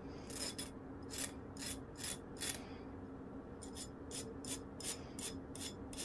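Cross-cut hand file draw-filing the edge of a lock pick blank: a run of short rasping strokes, spaced out at first, then a quicker run of about five strokes a second in the second half. The draw filing knocks down high spots and leaves a smooth finish without file teeth marks.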